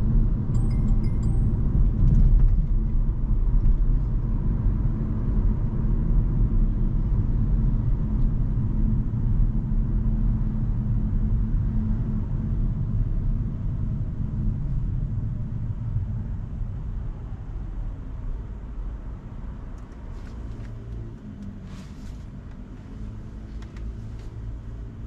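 Road and tyre rumble of a moving Hyundai Kona Hybrid, a dense low noise that grows steadily quieter over the second half.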